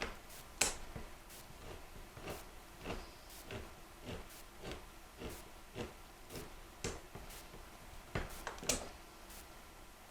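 Hand-cranked can opener being turned around a can of refried beans, giving faint, evenly spaced clicks about twice a second.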